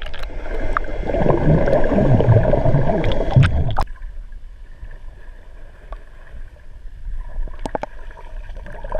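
Water rushing and bubbling against a GoPro Hero3 Black's waterproof housing as it is plunged underwater. About four seconds in this drops suddenly to a quieter, muffled underwater hush, with a few faint clicks near the end.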